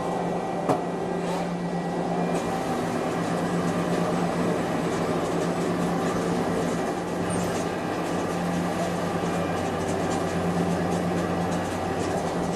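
CNC machine running with a steady mechanical hum, with one sharp click about a second in.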